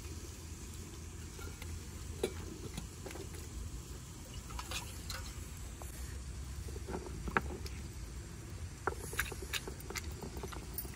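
Scattered light clicks and knocks of ingredients being tipped from a steel bowl onto a flat stone grinding slab and the bowl being set down, over a steady low background rumble. Near the end the stone roller is taken up to grind the masala.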